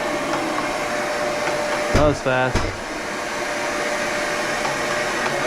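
Dust-extraction vacuum running with a steady whooshing hum. A brief voice is heard about two seconds in.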